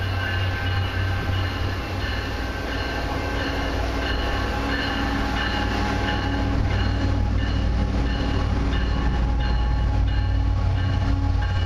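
Diesel locomotives at the head of a freight train approaching, their engines running with a steady low rumble that slowly grows louder.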